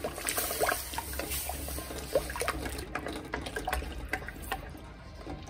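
Bottle gourd purée being poured slowly into a hot kadai of ghee-roasted wheat flour and stirred with a spatula: a liquid pouring and splashing sound with scattered small pops and clicks.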